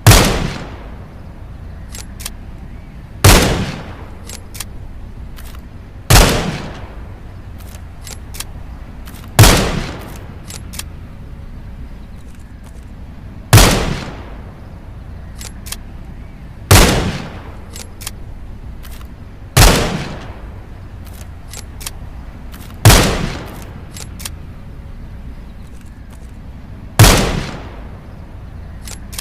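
.22 rifle firing single shots, nine in all, roughly one every three seconds, each a sharp crack with a short fading tail. Fainter ticks sound between some of the shots.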